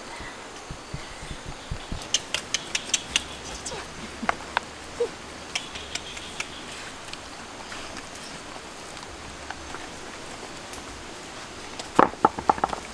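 Two dogs eating cooked catfish from a metal tray: quick sharp clicks of chewing and tray contact, a fast run of them a couple of seconds in and a louder cluster near the end.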